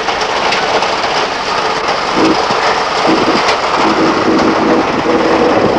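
Hailstorm: hail and rain falling in a steady, loud hiss, with a few sharper hits now and then.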